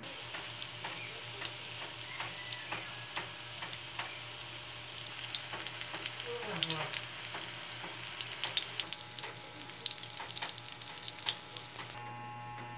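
Lumpia (Filipino spring rolls) frying in hot oil in a wok: a steady sizzle with scattered crackles and pops. The popping grows denser and louder about five seconds in, and the sound stops abruptly near the end.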